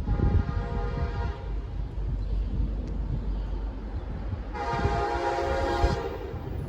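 Nathan Airchime K5LA five-chime locomotive air horn sounding two blasts of a chord, each about a second and a half long: one at the start and another about four and a half seconds in. A low rumble from the train runs underneath.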